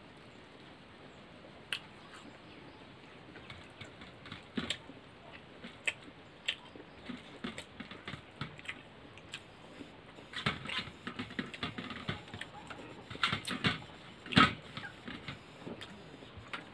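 Close-up eating by hand from steel plates: scattered soft clicks and scrapes of fingers on the plates, with chewing and lip smacks, busier in the second half and with one louder knock near the end.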